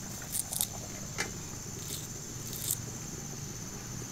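A small knife slicing shallots held in the hand: a few soft, crisp cuts at irregular intervals. A steady high-pitched hum runs behind.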